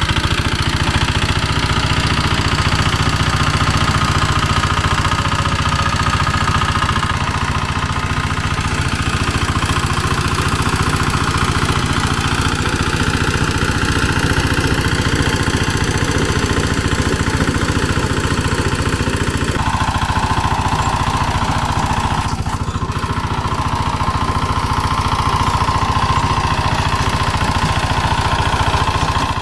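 Single-cylinder diesel walk-behind tractor running steadily under load, driving a rotary tiller through dry, compacted soil. About twenty seconds in a higher steady tone joins the engine sound.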